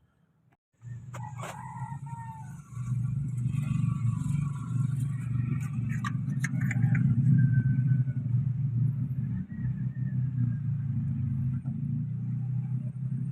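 Nissan NV350 Urvan van engine starting about a second in and then idling steadily, with a step up in level a couple of seconds later.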